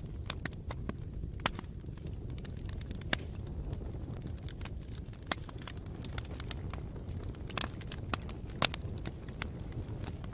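Campfire burning with a steady low rumble and scattered sharp crackles and pops of the wood, a few louder pops standing out.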